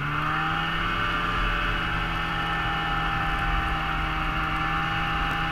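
Snowmobile engine running at a steady cruising speed, heard from on board the moving sled, a constant drone that holds its pitch.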